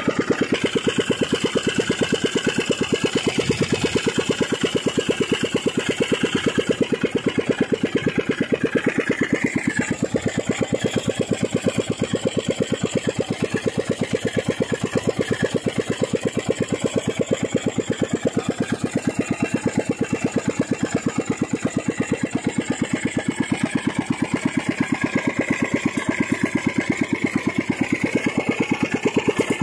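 Small longtail (ketinting) boat engine running steadily with the boat underway, a fast, even firing beat, its pitch dropping slightly about ten seconds in.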